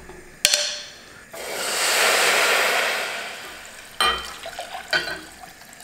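Water poured from a glass pitcher into a stainless steel saucepan of toasted rice: a rushing splash that swells and then tapers off over about two seconds. A sharp clack comes just before it, and a knock follows near the end.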